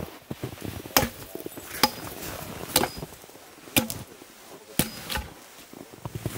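Axe chopping into a frozen log, about five sharp strikes roughly a second apart.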